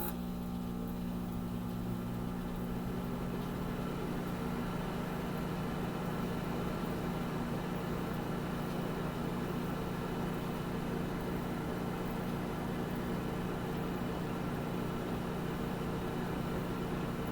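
Very old microwave oven running: a steady, even hum with a fan-like whir that does not change.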